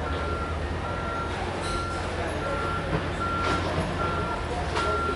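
Electronic warning beeper sounding steadily, one short beep about every 0.8 seconds, like a vehicle's reversing alarm, over the low rumble of an approaching diesel freight locomotive.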